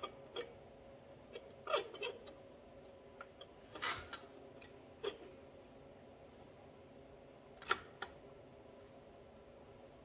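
A scattered handful of light metallic clicks and small scrapes, the sharpest just before eight seconds in, as the finned cylinder of a Suzuki LT80 is rocked down its studs over the piston to squeeze the new piston rings into the bore.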